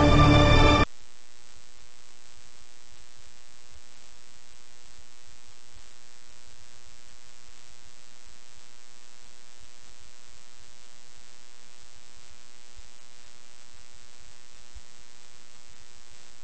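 Steady electrical mains hum with a buzzy stack of evenly spaced overtones and faint static. It follows a short loud burst of programme audio that cuts off abruptly just under a second in.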